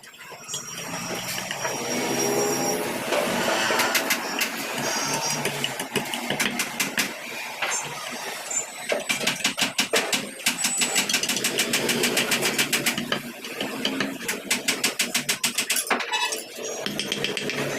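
Wood carving work: a small motorised tool runs for several seconds, then fast repeated knocks follow, about four a second.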